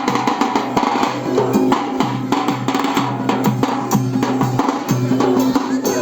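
Loud wedding music with a fast, dense drum beat over sustained melodic tones.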